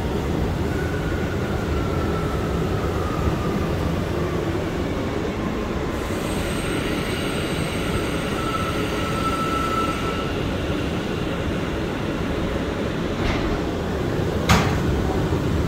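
R179 subway car running and slowing into a station: a steady rumble of wheels on rail, a faint whine falling in pitch as the train slows, and faint high squealing tones as it comes to a stop. Two sharp knocks near the end.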